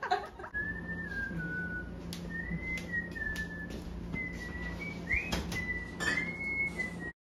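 Someone whistling a slow tune: a single pure note wandering up and down with short breaks, over a few light clinks and knocks and a low steady hum. It cuts off suddenly near the end.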